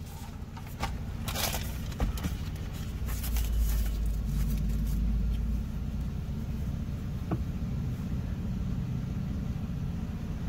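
Car engine running at idle, heard from inside the cabin as a steady low rumble that swells for a couple of seconds midway, with a few brief clicks in the first two seconds.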